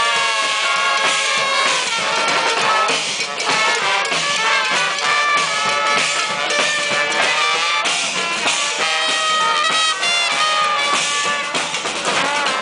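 Street brass band playing a loud tune, several horns sounding together.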